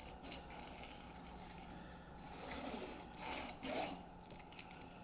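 Screen spline rolling tool pressed and run along the rubber spline in a screen frame's groove: faint rubbing strokes, with about three louder strokes between two and four seconds in. The spline is being seated firmly down into the groove.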